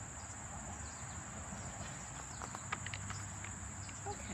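A steady high-pitched insect chorus, with a few light clicks and a faint rustle just past the middle as a hardcover picture book is opened.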